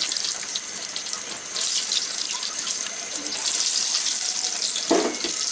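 Egg-coated minced-chicken kababs deep-frying in hot oil in a pot: a steady high-pitched sizzle with fine crackling and popping, swelling and easing in waves.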